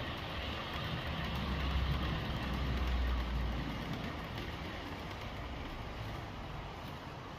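Model passenger train rolling along the layout's track, a low rumble of wheels and motor that swells for a couple of seconds and then fades as the train moves away.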